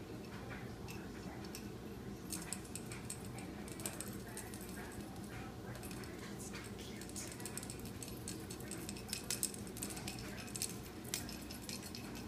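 Quick light clicks and taps, starting about two seconds in and coming thicker near the end, as kittens bat at a dangling wand toy and scrabble with their paws and claws on a hardwood floor. A steady low hum runs underneath.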